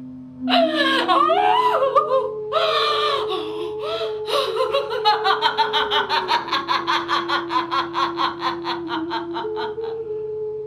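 A woman's hysterical, grief-stricken laughter: a few drawn-out cries, then a long run of rapid ha-ha-ha pulses, about five a second, that fades out near the end. A sustained musical drone holds underneath.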